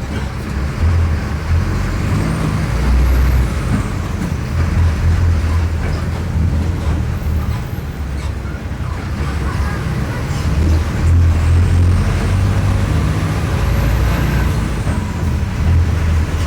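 Mercedes-Benz OF-1418 bus's OM-904LA turbo diesel engine running while the bus drives, its low drone swelling and easing several times. A faint high whine rises and then falls twice.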